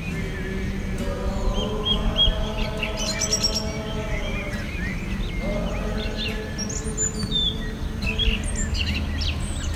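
Birds chirping and twittering in many short high calls over background music with sustained, held chords.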